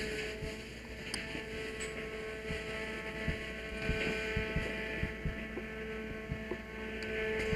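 Steady machine hum with a constant high tone, from equipment running on the fireground, with a few soft knocks over it.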